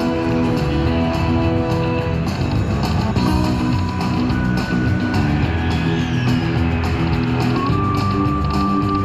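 Buffalo Cash slot machine playing its free-games bonus music as the reels spin through the free games: a steady tune of held notes that change every second or so.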